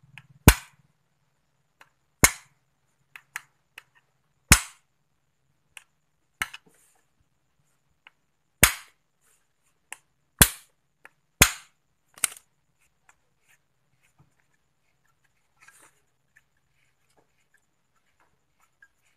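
About eight sharp knocks, irregularly spaced a second or two apart, as a blender's blade assembly is struck with a hand tool to work the blades loose. The knocks stop about twelve seconds in, leaving only faint handling clicks.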